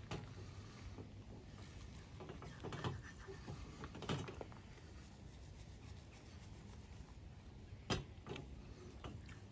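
Quiet background with a few faint, short knocks spaced over several seconds, the clearest near the end.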